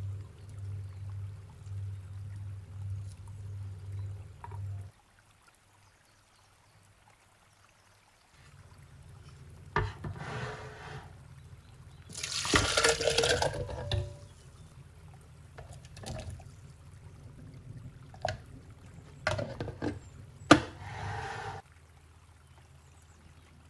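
Cooked pumpkin pieces and their liquid poured from a pan into a plastic blender jug, a loud splashing pour of about a second and a half midway. It is followed by several sharp plastic clicks as the jug is handled and set on the blender base.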